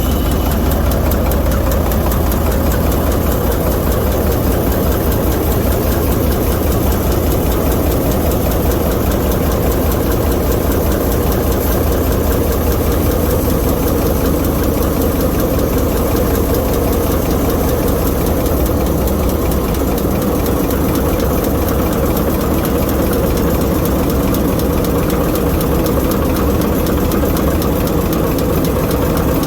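ALCO 539T turbocharged inline six-cylinder diesel prime mover of an S4 switcher locomotive, running steadily at a constant speed with a fast, even beat.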